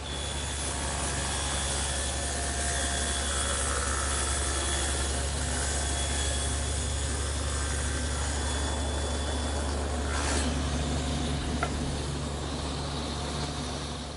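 Table saw running steadily while its blade cuts a stopped groove into a wooden board. The sound cuts off suddenly at the end.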